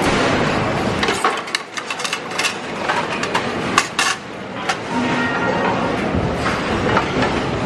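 Cafeteria serving-line clatter: plastic trays and stainless-steel cutlery and serving utensils knocking and clinking, many sharp knocks over a steady background of kitchen and dining-hall noise.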